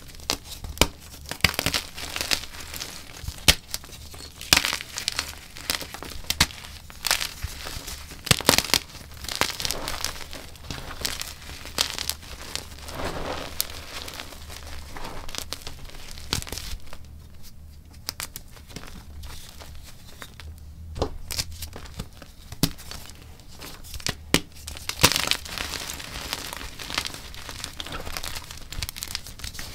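Chunks of gym chalk being crushed and crumbled, with irregular sharp crunches and crackles and softer crumbling between them. There is a brief lull a little past halfway.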